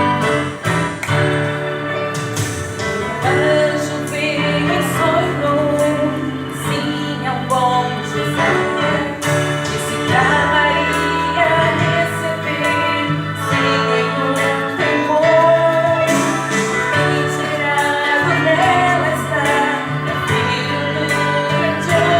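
A song from a Christmas cantata: voices singing a melody over a continuous instrumental accompaniment.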